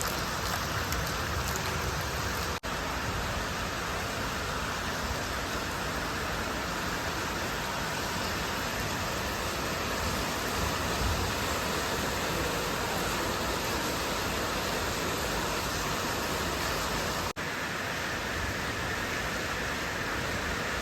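Heavy rain falling steadily, a dense even hiss of rain on surfaces. The sound cuts out for an instant twice.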